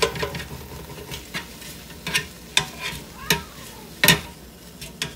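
A utensil clicking and knocking against a metal air fryer basket as cooked chicken breasts are pried apart and turned over: about seven sharp clacks, the loudest a little after four seconds in. A low steady hiss runs underneath.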